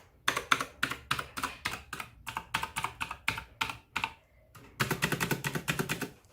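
Rapid typing on a mechanical keyboard, about five sharp keystroke clicks a second. It breaks off briefly about four seconds in, then resumes with heavier, fuller clacks.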